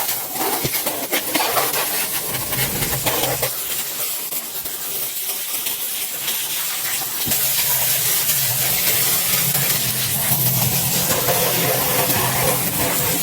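Loud steady hiss, like air or spray under pressure, with a low steady hum joining about seven seconds in.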